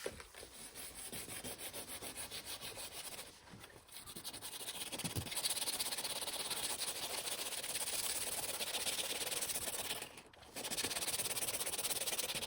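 180-grit sandpaper rubbed back and forth over bubbling clear coat on a car body panel, in quick even strokes of about five a second, with two short pauses. It is sanding through the blistered clear coat.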